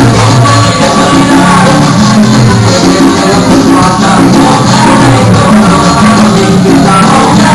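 Loud salsa music with a singing voice.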